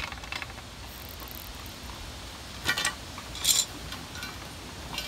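Metal pliers clicking and clinking against a threaded steel pipe fitting as it is worked onto a pipe, with a few light clicks at the start and two sharper clinks a little past halfway, over a steady low rumble.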